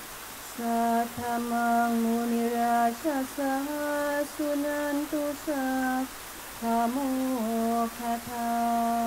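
A woman singing a slow, chant-like melody in long held notes, with short slides in pitch between them, in phrases of two to three seconds broken by brief pauses.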